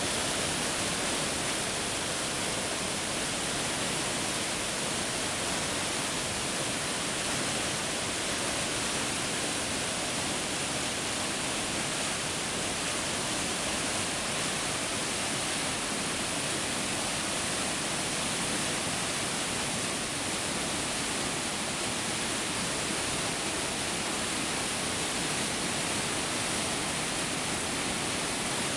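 River rapids rushing over rocks as foaming whitewater, a steady, unbroken rush of water noise.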